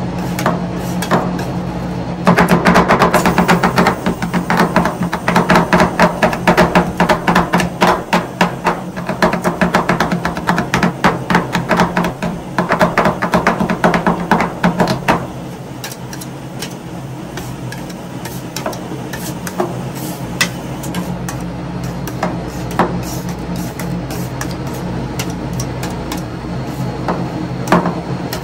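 Metal spatulas chopping on a steel cold plate as rolled ice cream is mixed: a fast run of sharp taps starting about two seconds in, easing to occasional single taps about halfway through. A steady low hum runs underneath.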